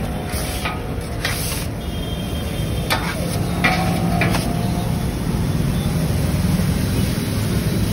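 Metal spatula scraping and stirring prawn masala across a large flat iron griddle, several scrapes in the first half, over sizzling and a steady low rumble.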